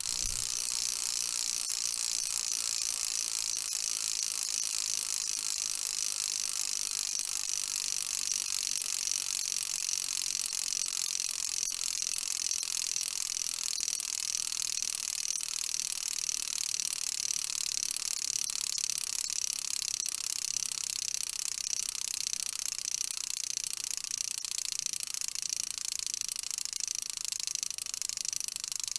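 Bicycle wheel spinning steadily: a fast, even, high-pitched ticking buzz, typical of the hub's ratchet clicking while the wheel freewheels.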